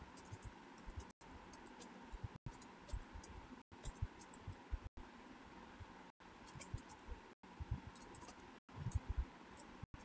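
Typing on a computer keyboard: irregular key clicks and soft thuds over a faint steady hiss. The background cuts out for an instant about every second and a quarter.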